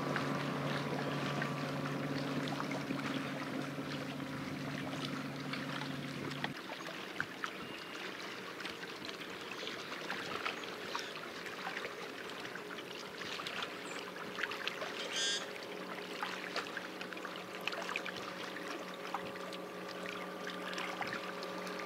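Small waves lapping and splashing in a constant patter, under a steady boat-motor hum that cuts off about six and a half seconds in. A short high chirp comes about halfway through.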